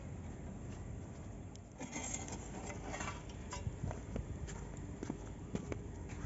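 Faint handling sounds: cloth rustling and scattered light clicks and knocks as a steel tray lid is settled over a cloth on a cooking pot, busier from about two seconds in.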